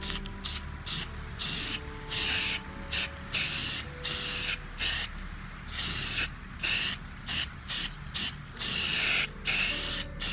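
Rust-Oleum aerosol spray paint can hissing in a rapid series of short bursts, with a few longer sprays mixed in.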